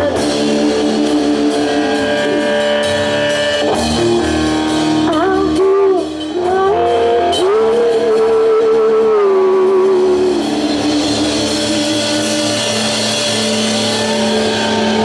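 Live rock band: a woman singing long, wavering held notes over electric guitars, bass and drums. The voice drops out about two-thirds of the way through while the instruments keep sounding a held chord.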